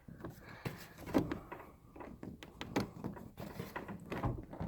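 Light interior door being shifted and held in place, with irregular knocks, clicks and rattles from the door and its metal hinge.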